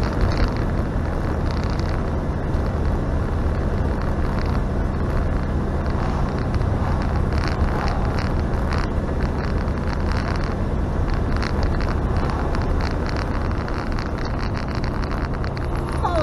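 A motorhome's engine and road noise, heard from inside the cab while it drives at a steady cruising speed: a continuous low drone with tyre and wind hiss.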